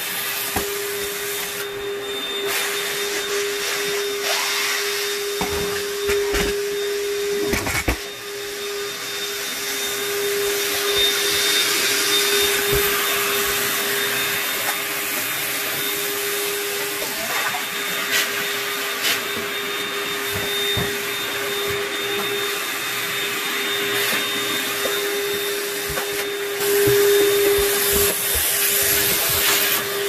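Anway Clear Trak (Workhorse) upright vacuum running with its hose and wand, a steady motor whine over the rush of suction air, with a few short knocks along the way and a little louder near the end.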